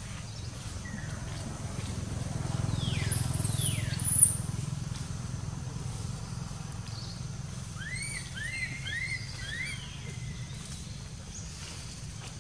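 Infant macaque giving short squeaky distress calls: a couple of falling squeals about three seconds in, then a quick run of five rising chirps about two-thirds of the way through. A steady low rumble sits underneath, with a single sharp click about four seconds in.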